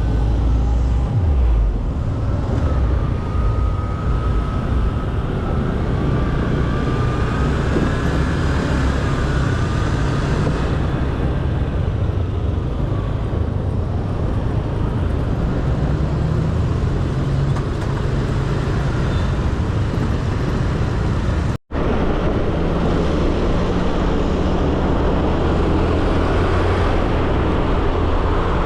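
Engine running steadily while travelling, a loud low rumble with rushing noise, dropping out for an instant about three-quarters of the way through.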